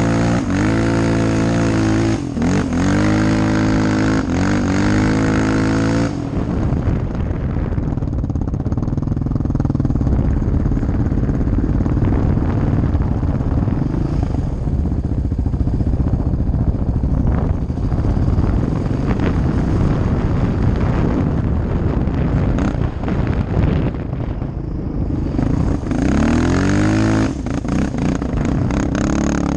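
Sport quad (ATV) engine on the dunes, revving up and down. For much of the ride a rough rushing noise buries the engine note, which comes through clearly again near the end as it revs up.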